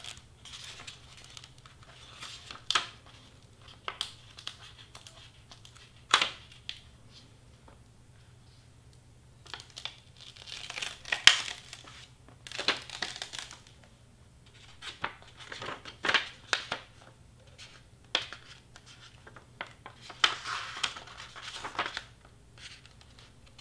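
Heat transfer vinyl sheet being handled and peeled by hand, crinkling and crackling in irregular bursts.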